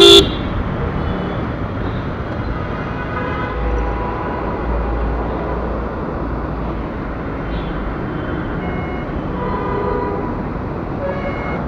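Steady street traffic noise with a low engine rumble that swells for a few seconds in the middle.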